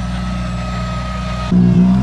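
Rally2 car's turbocharged four-cylinder engine running steadily at low revs. About one and a half seconds in, the sound switches abruptly to a louder rally car idling close by at the start line.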